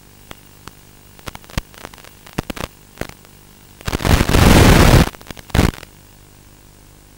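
Scattered crackles, then a loud burst of radio static about a second long starting about four seconds in and a shorter one just after. This is interference on an analog FPV quadcopter video link as the signal breaks up.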